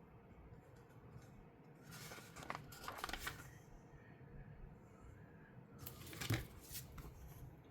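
Plastic Lego pieces being handled: two short bouts of clicking and rustling, about two seconds in and again about six seconds in, the second with one sharp click.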